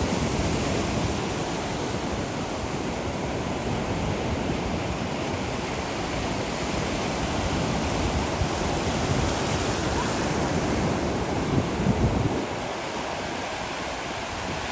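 Ocean surf breaking and washing up the beach, with wind buffeting the microphone; the low wind rumble drops away about two seconds before the end.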